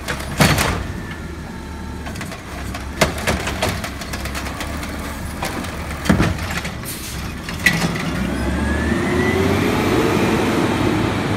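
Natural-gas automated side-loader garbage truck emptying a cart. The cart knocks at the top of the arm's lift as it dumps, there are more knocks as the arm lowers, and the cart is set down with a bang about six seconds in. Near the end the engine rises in a whine as the truck pulls away.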